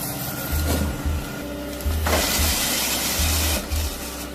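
Background music with a steady, repeating bass beat, joined about two seconds in by a hissing mechanical noise.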